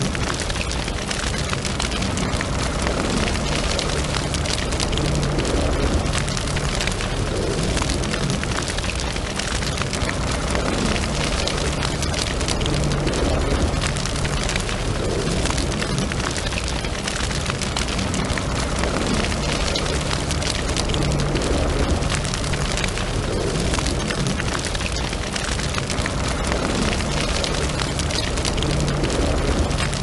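Fireplace fire burning: dense, steady crackling and popping over a low rumble.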